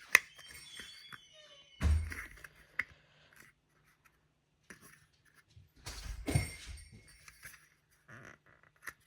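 Handling noise from model train car parts being pushed and fitted together by hand: scattered small clicks and light knocks, with a louder bump about two seconds in and another around six seconds. The part is not going in easily.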